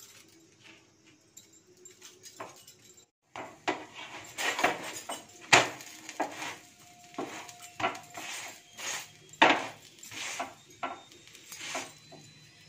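Wooden spatula tapping and pressing an aloo paratha on a hot tawa: a run of sharp taps against the pan, roughly one a second, starting about three seconds in.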